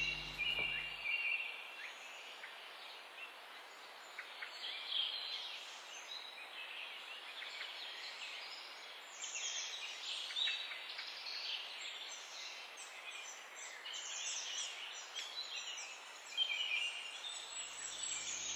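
Small birds chirping and calling at irregular intervals, several short calls overlapping, over a faint steady hiss of outdoor background noise.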